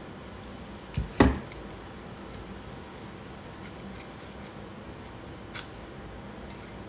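Scissors clacking: two sharp knocks close together about a second in, then a faint click later on.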